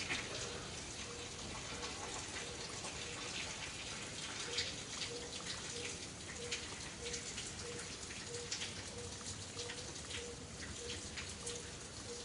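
Rain pattering: a steady hiss full of small irregular ticks, with a faint short tone repeating about twice a second behind it.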